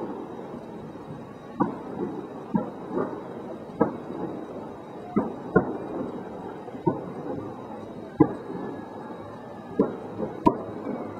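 Fireworks bursting: about a dozen sharp bangs at uneven intervals, each trailing off in a short rumble, over a continuous low rumble. The loudest bang comes near the end.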